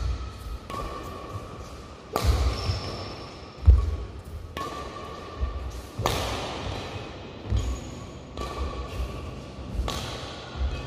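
Badminton rally in a large hall: sharp echoing racket-on-shuttlecock hits about every four seconds, with low thuds of footwork landing on the court and short shoe squeaks on the court mat.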